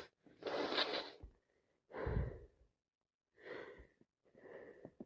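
A person with a head cold gasping and breathing noisily between sneezes in a sneezing fit. There is a louder gasp about half a second in, another around two seconds, then fainter breaths with a faint whistling note.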